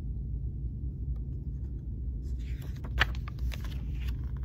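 Paper rustling and crackling as a large picture book's page is turned, starting about halfway through, with a sharper click about three seconds in, over a steady low hum.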